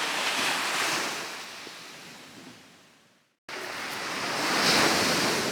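Ocean waves washing onto the beach: one surge swells and fades away, the sound cuts out briefly about three seconds in, then another surge builds toward the end.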